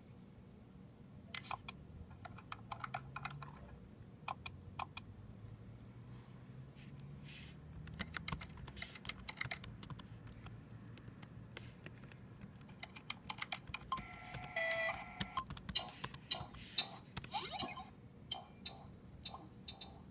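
Typing on a laptop keyboard: several short bursts of rapid keystroke clicks, with pauses between them.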